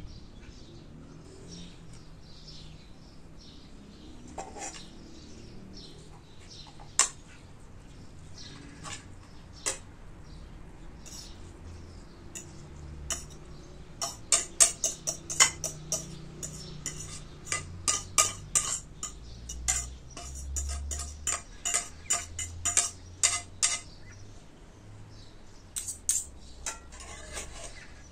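A metal spoon clinking and scraping against metal bowls and a pan while rice is mixed and spooned out. A few single clinks, then a quick run of many clinks through the middle.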